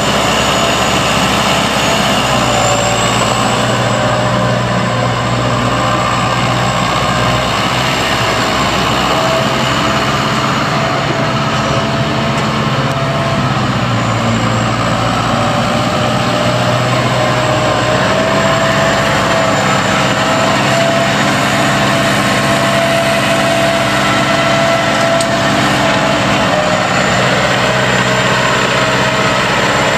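Ford 7000 tractor's four-cylinder Ford diesel engine running steadily at low engine speed while the tractor is driven slowly, with only slight changes in engine pitch.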